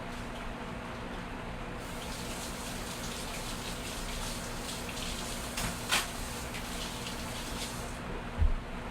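Running water, like a tap, starts about two seconds in and stops about a second before the end. There is a sharp click midway and a low thump near the end.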